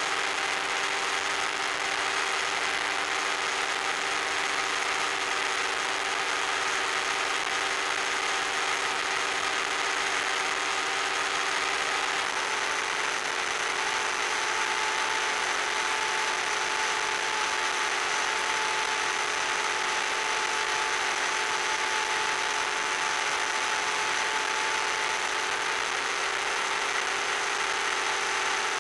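Electric motor and propeller of an FPV RC plane in cruising flight, a steady hum over a constant hiss. The pitch of the hum shifts slightly about twelve seconds in.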